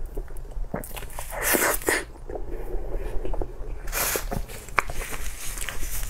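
Close-miked wet chewing and biting of saucy food, with irregular smacking mouth clicks and short squishy bursts.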